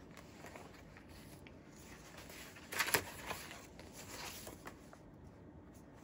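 Sheets of paper being handled and shifted across a stack: soft rustling and sliding, with one louder rustle about three seconds in.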